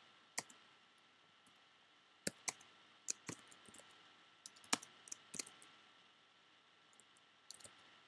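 Typing on a computer keyboard: scattered, irregular keystrokes in small clusters, with pauses of a second or more between them.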